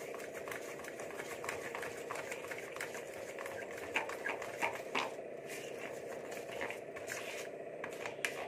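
Spatula stirring and scraping thick gram-flour and rice-flour batter in a steel bowl: soft irregular clicks and taps, with a few louder knocks against the bowl about four and five seconds in, over a steady background hum.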